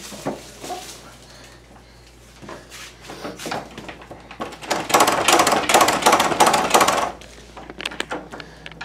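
Things being handled and knocked about, with scattered clicks and knocks, then about two seconds of dense rustling and crinkling from about five seconds in.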